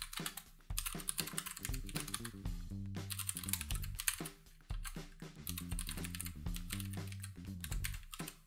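Fast typing on a computer keyboard, a quick run of key clicks broken by short pauses, over background music with steady low bass notes.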